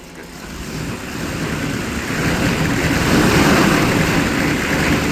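1995 Chevy 3500's 6.5L Detroit Diesel V8 running rough just after a hard cold start, rising in level over the first few seconds as it is revved to keep it from stalling, then holding steady. It shakes and won't stay running at idle, which the owners suspect could be gelled fuel.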